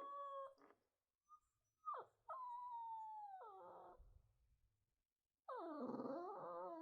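Puppy whining and crying: a high whine that stops within the first second, a short yelp about two seconds in, a long whine sliding down in pitch, then after a pause a wavering cry near the end. Typical of a puppy left alone crying for attention.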